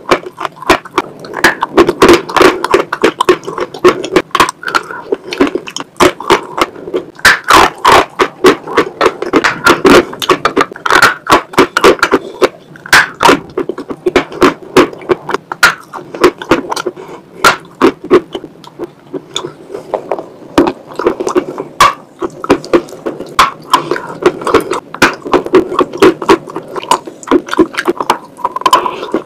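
Close-miked chewing of chalk mixed with wet chalk paste: a dense run of sharp crunches and wet mouth clicks, with squelching of the paste.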